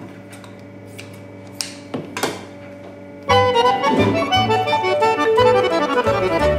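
Accordion music: quiet held notes for the first three seconds, then a lively passage of quick accordion notes that comes in loudly about three seconds in.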